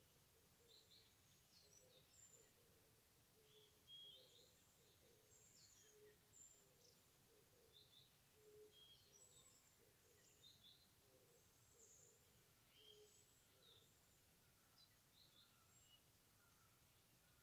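Faint birdsong from several birds: scattered short, high chirps and calls, with softer low notes repeating beneath them for most of the time, over a near-silent background.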